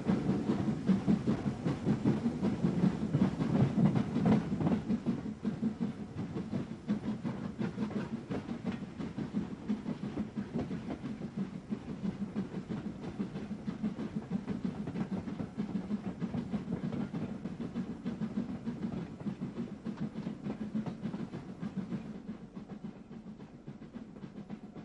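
GNR VS class 4-4-0 steam locomotive pulling away with its train, a rapid run of exhaust beats and the rattle of the coaches. It is loudest in the first few seconds, then fades as the train draws off.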